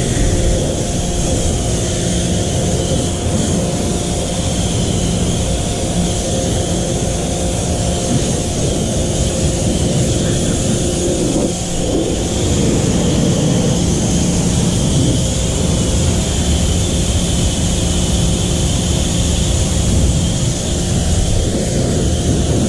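Pressure washer running steadily with a motor hum while its wand sprays a jet of water onto a car's bodywork, rinsing it off. There is a hissing spray throughout, with a brief dip and change in the hum near the middle.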